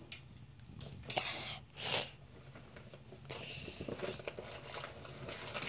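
Plastic packaging bags crinkling and rustling as drone parts are handled and unpacked: two short rustles about one and two seconds in, then continuous crinkling from about halfway.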